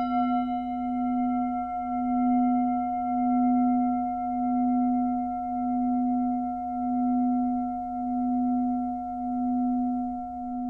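Singing bowl struck once, ringing on with a low steady tone and higher overtones, its loudness wavering slowly about once a second.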